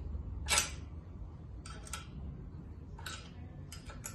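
Wrench and bolts clicking on an air compressor's cast cylinder head as the valve-cover screws are loosened: about seven sharp metallic clicks at irregular intervals, some in quick pairs, the loudest about half a second in.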